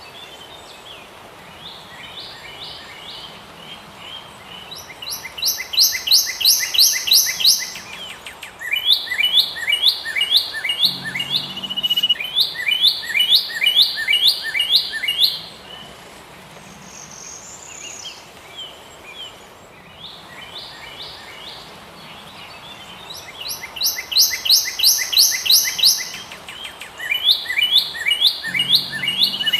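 Songbirds singing: bouts of fast, repeated chirping notes lasting a few seconds each, over a faint steady background hiss, with a lull in the middle.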